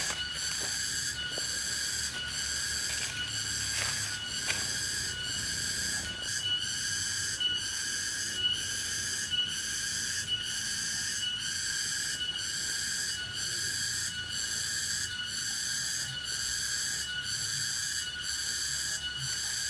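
An insect calling in a steady, even rhythm of about one pulsed buzz a second, each pulse a high, ringing, whistle-like tone.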